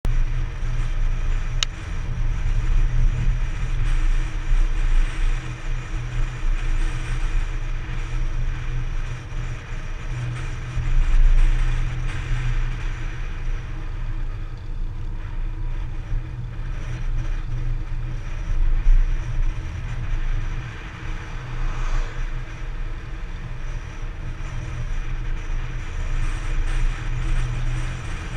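Vehicle engine running steadily while riding along a road, with wind buffeting the microphone as a low, fluctuating rumble.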